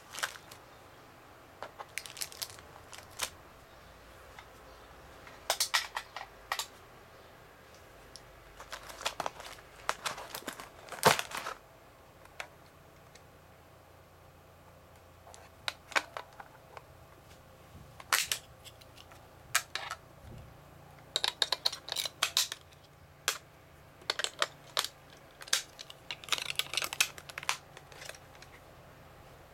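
Hands taking an Omron HV-F128 low-frequency therapy unit and its pads out of a clear plastic packaging tray: scattered plastic clicks, knocks and rustling, with the sharpest knock about eleven seconds in.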